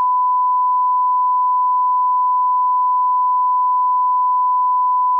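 Steady 1 kHz reference tone, a single pure unbroken beep at constant level. It is the line-up test tone that goes with colour bars at the head of a broadcast tape, used to set audio levels.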